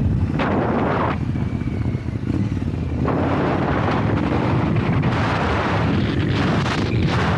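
Triumph Scrambler 900's parallel-twin engine running as the motorcycle rides along, with wind buffeting the microphone. The wind rush fades for a couple of seconds about a second in and then comes back.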